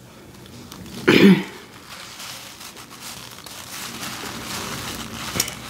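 Close-up eating noises: soft chewing and mouth sounds with small clicks, along with the crinkle of a paper napkin in her hand. A short voiced sound comes about a second in.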